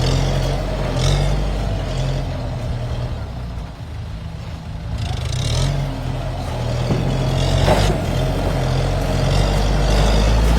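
Kubota M7040SU tractor's four-cylinder diesel engine running, easing off about three to four seconds in and then picking up again.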